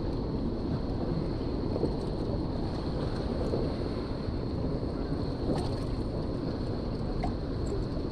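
Steady wind buffeting the microphone of a chest-worn camera, with a faint steady high-pitched whine and a couple of faint ticks.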